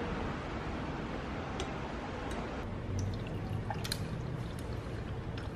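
Scattered light clinks over a steady low hiss: a spoon against a plate at first, then ice cubes knocking in a double-walled glass of iced coffee as a straw stirs it, the brightest cluster of clinks about four seconds in.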